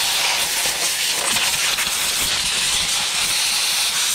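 Compressed-air blow gun hissing steadily as it blasts concrete dust and sand out of an angle grinder's gear head.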